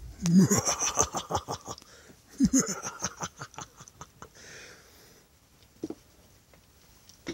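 A person laughing in two bursts of rapid, repeated pulses, the second starting about two and a half seconds in.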